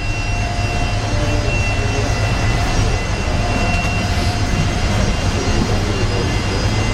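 Jet airliner noise: a loud steady rush with a low rumble and several high, steady whining tones, typical of jet engines or an auxiliary power unit running on the ground.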